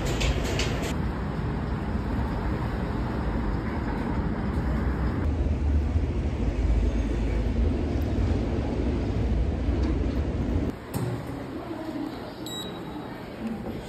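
City street traffic noise, a steady low rumble. About eleven seconds in it drops to quieter station ambience, and near the end a subway fare gate's card reader gives a short beep.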